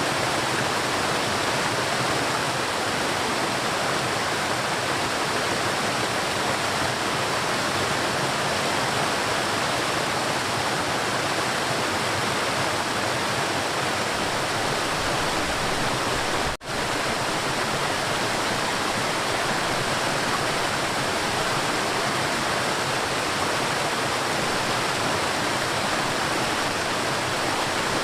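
River water flowing in a steady, dense rush. About two-thirds of the way through the sound drops out for a split second, then carries on unchanged.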